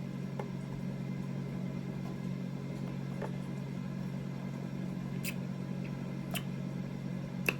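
Air fryer running, a steady low hum, with a few faint short clicks over it.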